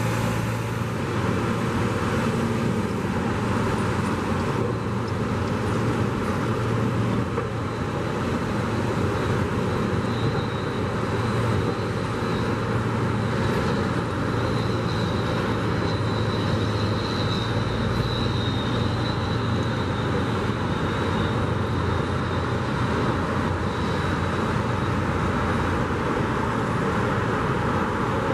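Steady drone of heavy engine machinery mixed with road traffic: a continuous low engine hum, with a faint high whine from about ten seconds in until near the end.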